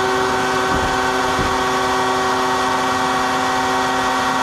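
Woodworking power tool running steadily, a constant motor hum with several steady tones.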